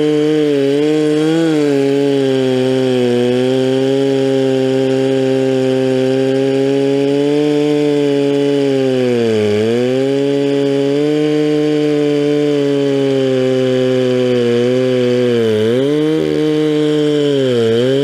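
Stihl 046 Magnum two-stroke chainsaw running at full throttle, ripping lengthwise through a log with a milling chain on a 24-inch bar. The engine note is steady, and its pitch sags briefly three times, about halfway and twice near the end, as the chain loads up in the cut and then recovers.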